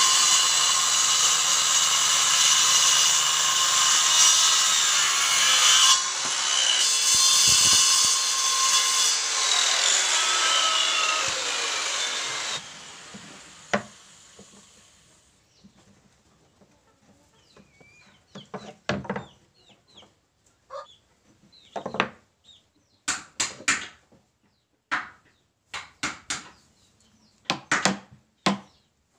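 Handheld circular saw running and cutting through a wooden board, its pitch sagging a little near the end of the cut. After a sudden break, a series of sharp, irregular knocks as a chisel is struck with a hammer on the wooden joint.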